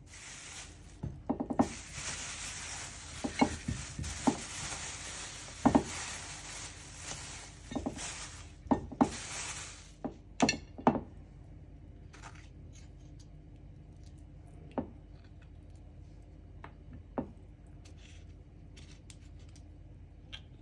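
Plastic bag and ingredient packets being handled, a crinkling rustle with sharp knocks, for the first ten seconds or so. Then plums set down into a ceramic baking dish, with a few separate knocks spaced out.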